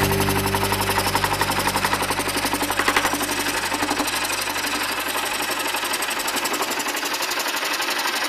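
Scroll saw running, its fine blade stroking rapidly up and down as it cuts a curve through a block of wood, a fast, even chatter.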